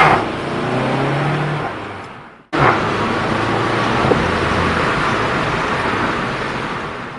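Volkswagen Golf 7 GTI's turbocharged four-cylinder engine and exhaust running under load. The sound cuts off abruptly about two and a half seconds in, then comes back as a loud rushing noise of the car going by that slowly fades.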